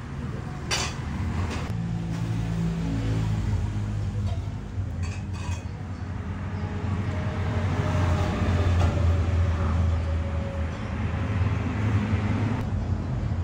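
Low steady mechanical hum like a motor running, growing louder toward the end and dropping off shortly before it finishes, with a few light clinks in the first half.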